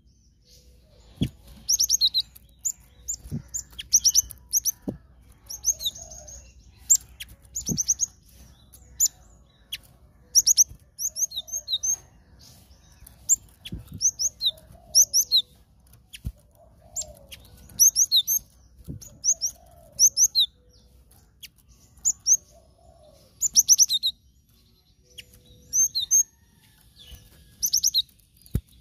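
Cinereous tit (glatik batu) calling in quick bursts of short, sharp, high chirps, usually paired, repeated throughout. Several soft thumps and wing flutters come in between as the bird moves about its cage.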